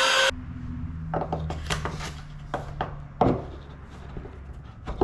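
A rising whoosh transition effect cuts off just after the start. Then comes irregular clicking and scraping of a screwdriver driving self-tapping screws into the boat's AC port plug mount, over a steady low hum.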